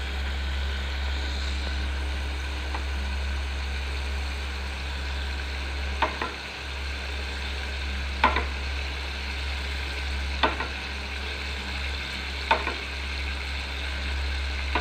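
A spiced onion and ginger masala sizzling gently in a wok over a low gas flame, over a steady low hum. A spoon clicks against the pan four times, about two seconds apart, as spoonfuls of sour yogurt are dropped in.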